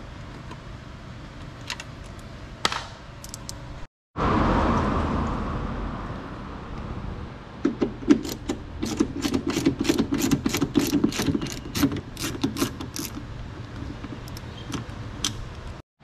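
A quick run of sharp metallic clicks and rattles from hand-tool work, lasting about five seconds in the middle, over a steady low hum. A few scattered clicks come before and after it, and a short burst of hiss comes in just after a brief dropout.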